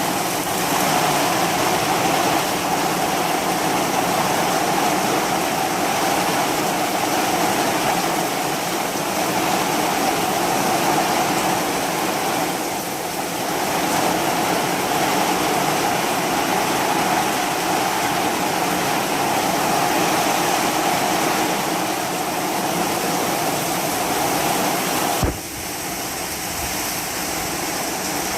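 Heavy storm rain pouring down, a loud steady rush of water that dips briefly about halfway through and drops suddenly in level near the end.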